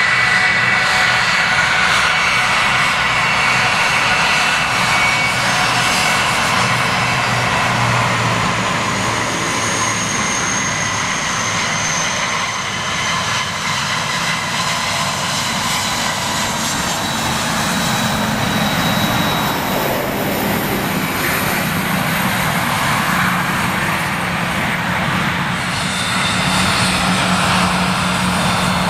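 Airliner jet engines at taxi power: a steady rushing hiss with thin whining tones as an Airbus A330-300 taxis past. Later a Boeing 737-800 taxis by, and the engine sound changes to a lower hum under the hiss.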